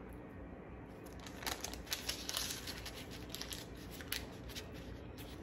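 Faint rustling and crinkling of a sheet of paper being rolled by hand around a skinless ground-chicken longganisa, in a few short scrapes mostly in the middle of the stretch.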